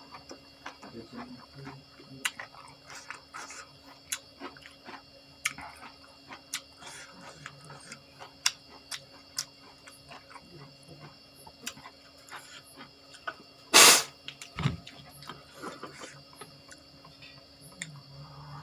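Close-up eating sounds: irregular wet chewing, crunching and lip smacks of someone eating raw vegetables and crackers. A much louder knock or bump comes about 14 seconds in.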